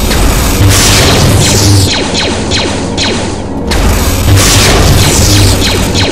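Sci-fi laser-blaster sound effects: a rapid flurry of quick falling-pitch zaps mixed with deep booms. They come in two louder volleys, about a second in and about four seconds in.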